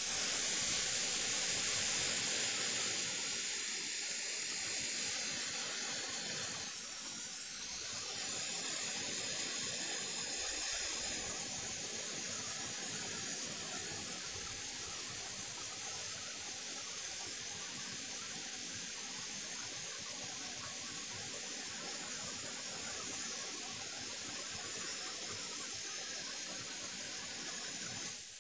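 Hot air rework station blowing a steady hiss of hot air, used to desolder a component from a laptop motherboard for replacement. The hiss dips briefly about seven seconds in and stops at the end.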